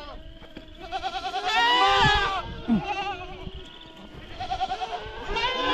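Several goats bleating, with overlapping, quavering calls; the loudest comes about a second and a half in, and more start up near the end.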